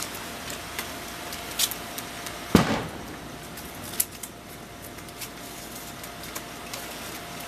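Gift wrapping paper crinkling and rustling in short scattered snaps as a present is handled and unwrapped. There is one louder thump and rustle about two and a half seconds in, over a faint steady hum.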